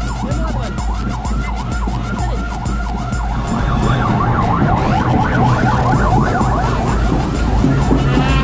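Several electronic sirens sounding at once in a fast yelp, their rapid up-and-down sweeps overlapping, over the low hum of idling car engines.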